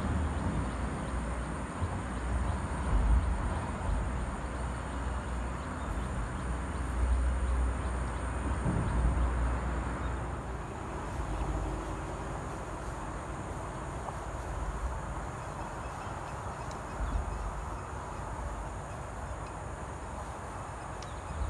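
Outdoor ambience: a steady background hiss with uneven gusts of low rumble from wind buffeting the microphone.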